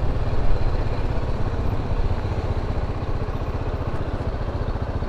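BMW G310GS's single-cylinder engine running steadily at low revs as the motorcycle rolls slowly.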